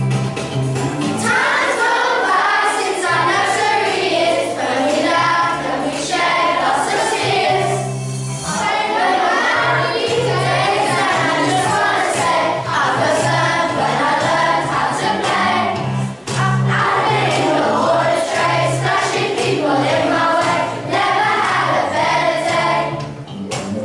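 A group of children singing a song together in unison, over instrumental backing with sustained low bass notes.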